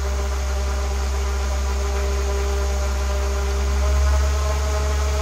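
Small 12 V brushed DC motor from a DVD drive, overdriven at about 34 volts, spinning a propeller at very high speed: a steady whine over a strong low hum. About four seconds in, the pitch steps up and the sound swells a little as the voltage is turned up.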